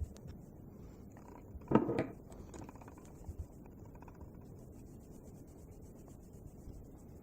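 Small tools and engine parts handled on a work surface: faint clicks, with one louder scraping rub about two seconds in.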